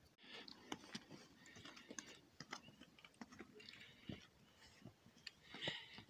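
Faint footsteps crunching on a stony mountain path, with irregular clicks scattered throughout.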